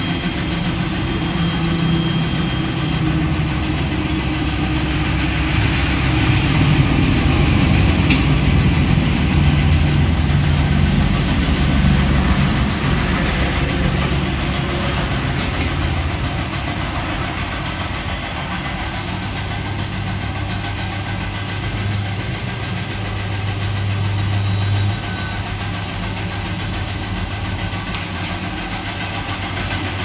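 A motor running steadily with a low hum throughout, rougher and louder for the first half, then settling into a steadier drone with a brief louder stretch a few seconds before the end.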